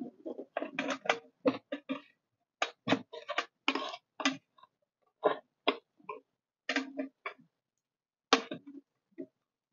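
A metal spoon scraping and clicking against the wells of a metal appe pan as the appe are pried loose and flipped over one by one: an irregular string of short scrapes and taps.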